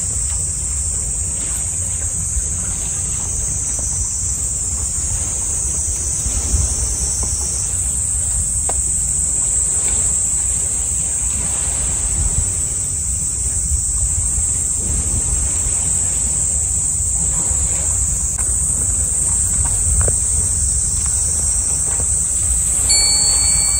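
Wind buffeting the microphone in a steady low rumble, over a constant high-pitched chorus of insects.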